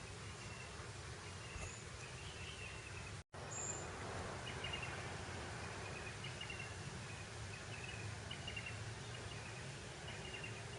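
Breeze blowing steadily across open grassland, with small high chirps repeating every second or so. The sound cuts out completely for an instant about three seconds in.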